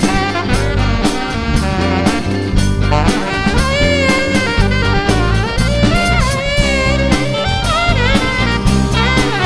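Saxophone solo with bending, wavering melody lines, backed by a rock band's drum kit, electric bass and electric guitar.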